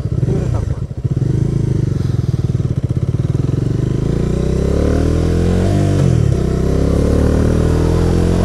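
Bajaj Dominar motorcycle's single-cylinder engine under way. It runs low and steady at first, then pulls harder from about four seconds in, rising in pitch, with a short dip around six seconds at a gear change before climbing again.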